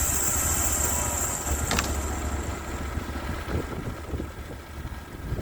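Band sawmill engine running steadily, with a high whine that fades out about two to three seconds in and a single sharp click near two seconds.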